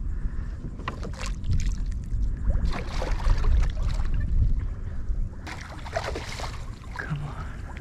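A hooked snook thrashing and splashing at the surface beside a kayak, in three bursts as it is worked toward the landing net.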